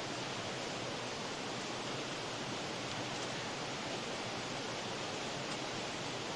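Steady rushing noise, even and unchanging, with no distinct scrapes or knocks standing out.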